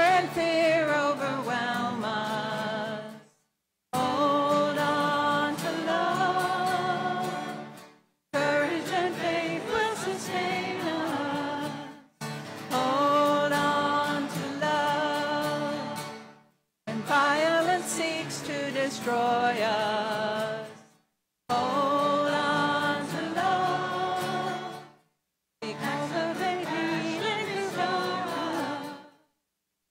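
Church hymn sung by choir and congregation, with music behind the voices. The sound cuts out completely for about half a second roughly every four seconds.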